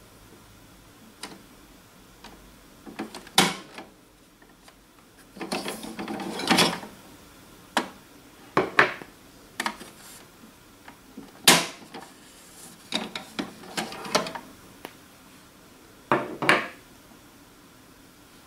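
HP 305 ink cartridges being pulled out of and pushed into an HP DeskJet printer's carriage: several sharp plastic clicks as the cartridges are unlatched and snapped home, with bursts of plastic scraping and rattling between them.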